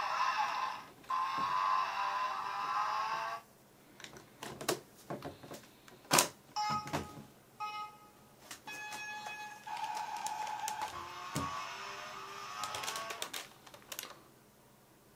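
Electronic sound effects from a toy blaster's speaker: two buzzy synthesized effects with rising tones, then sharp plastic clicks, a run of short keypad beeps, and a longer electronic effect that ends about a second before the end.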